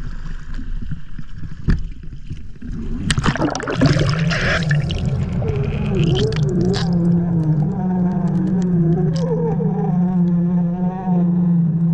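A splash as the waterproof camera case goes under about three seconds in, then a boat's Mercury outboard motor heard through the water: a steady low hum with higher tones wavering above it.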